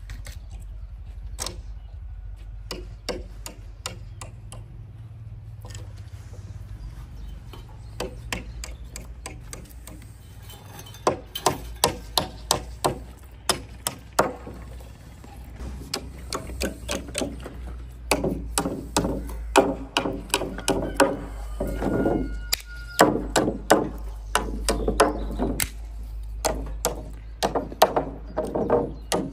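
A series of sharp, irregular knocks and clicks, like hand work with tools, sparse at first and growing louder and closer together about halfway through, some strikes with a short ring, over a steady low hum.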